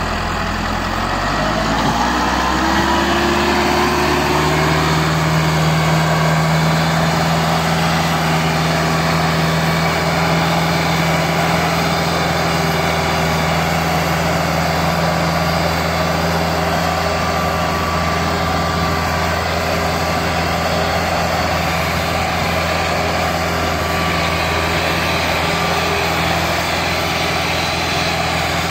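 Massey Ferguson 385 tractor's diesel engine revving up over the first few seconds, then running steadily under heavy load, pulling a loaded sugarcane trolley and blowing dark exhaust smoke.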